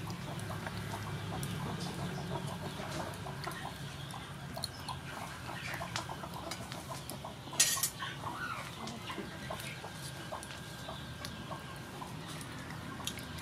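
Pan of water simmering with sea mushrooms in it, a steady run of small bubbling ticks, with chickens clucking in the background. About two-thirds of the way through comes one short, sharp clatter, the loudest sound.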